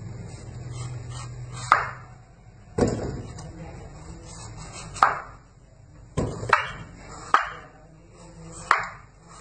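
Kitchen knife cutting the rind off a watermelon wedge, the blade knocking sharply onto a wooden cutting board about seven times at uneven intervals.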